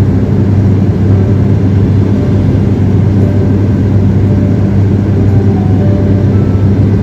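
Steady, loud drone of an airliner's engines heard from inside the passenger cabin: a low, even hum over a rushing noise.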